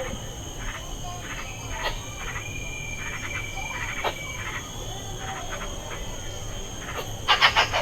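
Wild animal calls: clusters of short, rapid chattering notes, one held high note midway, and a dense burst of quick notes near the end, over a steady high insect drone.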